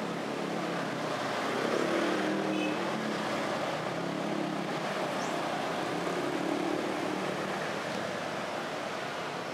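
Road traffic running steadily, with the engine hum of passing vehicles swelling about two seconds in and again around six to seven seconds.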